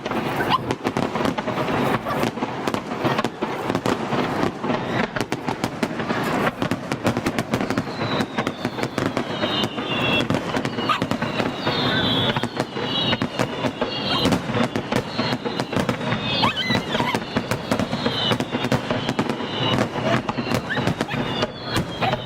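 Fireworks going off: a dense, rapid crackling of many small pops throughout, with short falling whistles joining in from about eight seconds in.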